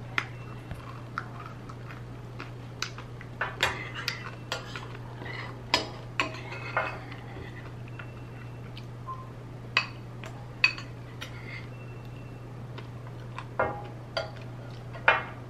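Metal spoon clinking and scraping against a bowl as ice cream is scooped and eaten, in irregular short clicks, a few of them sharper and louder.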